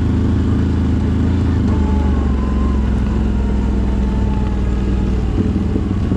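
CFMoto 1000 ATV's V-twin engine running steadily while riding, its note changing about five seconds in.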